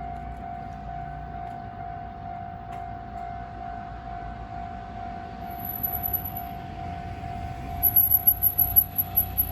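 Japanese level-crossing warning alarm ringing steadily over a low rumble. About six seconds in a very high, rapidly pulsing squeal joins in and grows loud near the end.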